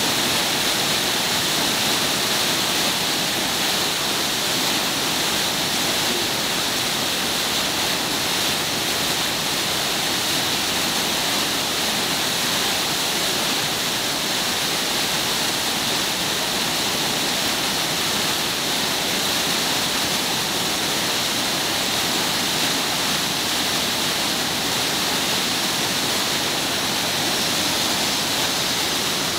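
Steady rush of river water pouring over a weir and churning in the white water below, the river running high after heavy rain.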